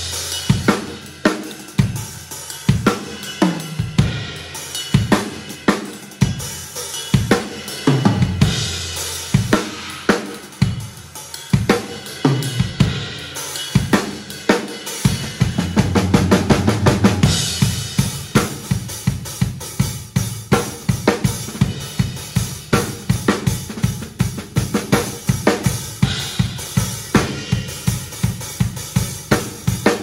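Acoustic drum kit played solo: separate snare, tom and kick hits with cymbals and long, ringing tom decays in the first half. From about halfway it turns into a fast, steady run of even strokes over a sustained low drum rumble.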